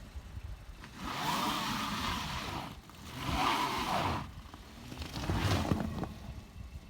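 2019 Volkswagen Jetta revving in reverse while stuck in snow, in three bursts, with the front wheels spinning and scrabbling for grip as it tries to get unstuck.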